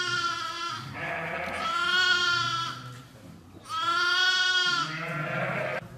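Romanov sheep bleating: three long, high-pitched bleats about two seconds apart, with shorter, lower, rougher bleats between them.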